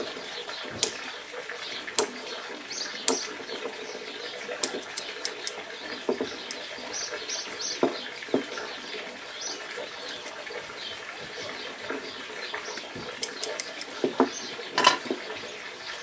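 Scattered small clicks and taps of hand work on a rock-planted ficus bonsai: scissors snipping and handling plastic cable ties, and the rock and roots being handled, with a louder knock about a second before the end.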